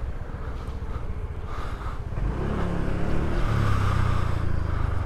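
Motor scooter engine running as the scooter pulls away, the engine note rising as it picks up speed about halfway through.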